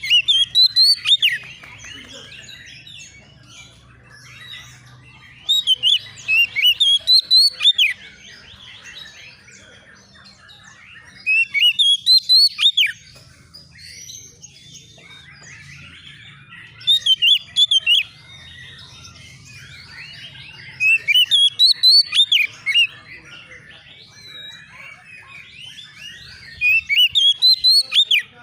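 Oriental magpie-robin (kacer) singing in six loud bursts of rapid, repeated whistled notes about five to six seconds apart, with quieter warbling chatter between the bursts and a faint low hum underneath.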